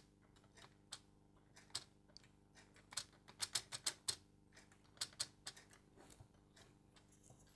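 Faint, irregular light clicks and taps of a plastic model clock frame and its gears being handled, with a quicker run of clicks about three to four seconds in.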